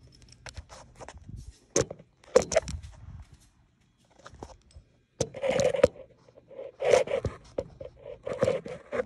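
Irregular scrapes and knocks of things being handled against a zero-turn mower, in several bursts: a few sharp clicks early, then longer scraping bursts in the second half.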